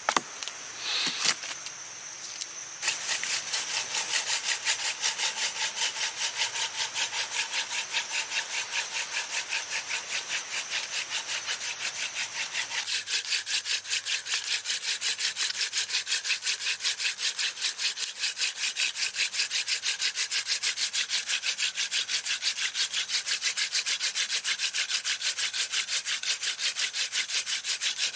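Mullein-stalk hand drill spun back and forth between the palms on a wooden hearth board: a steady, evenly pulsing rasp of wood rubbing on wood, starting about three seconds in after a few light knocks. The friction is grinding out hot char dust toward an ember.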